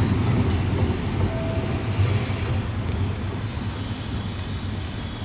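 Trenitalia Frecciarossa ETR 700 high-speed electric train rolling slowly along the platform and braking to a stop. Its low rumble fades, with a faint thin brake squeal and a short hiss about two seconds in.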